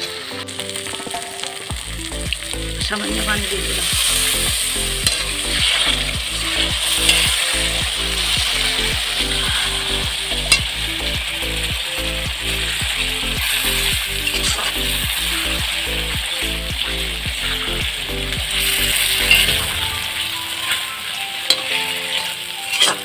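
Chicken pieces with spice paste and yogurt sizzling in a deep granite-coated pan over a wood fire, with a steady hiss as the liquid cooks. A metal spatula stirs and scrapes the pan, with an occasional sharp clink.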